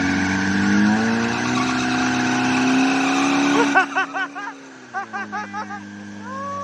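Suzuki LJ80 Jimny's four-cylinder engine running under load on an off-road track, then easing off and dropping in pitch about four seconds in. Over the quieter engine come a quick run of short high-pitched chirping calls and one longer call near the end.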